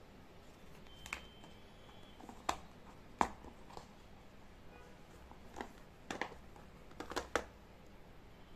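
Hands opening a cardboard AirPods box and lifting out the plastic charging case: scattered light taps, clicks and rustles of card and plastic, a quick cluster of clicks near the end.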